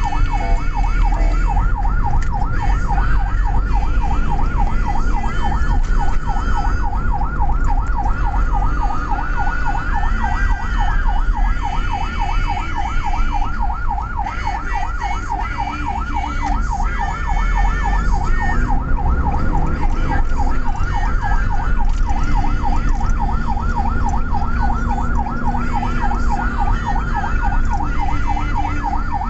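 Ambulance siren on a fast yelp, its pitch sweeping up and down several times a second without pause, heard from inside the ambulance's cab over the rumble of its engine and the road.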